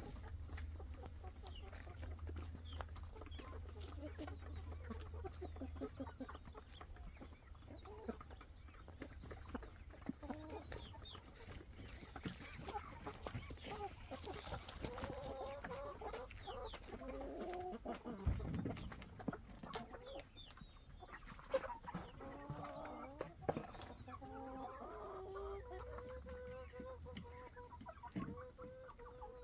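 Domestic hens clucking and calling to each other, a string of short pitched calls that grows busier after the first third.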